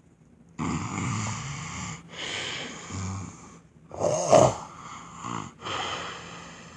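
A man snoring loud in his sleep: four long snoring breaths in a row, the third the loudest.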